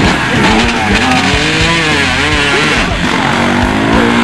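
Several off-road motorcycle engines revving, their pitch repeatedly rising and falling as the bikes strain through deep mud.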